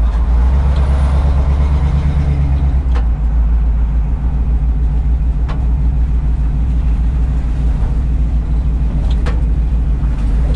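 1971 Chevrolet C10's V8 running through its dual exhaust with Flowmaster-style mufflers, heard from inside the cab while the truck is driven: a steady, deep exhaust rumble.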